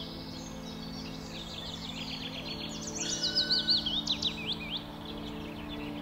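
Small songbirds singing and chirping in woodland. About halfway through, one bird sings a loud phrase of rapid sweeping notes lasting under two seconds. A steady low hum lies underneath.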